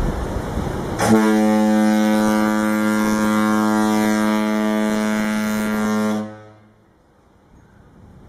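Ship's horn sounding one long, steady low blast that starts suddenly about a second in and dies away after about five seconds.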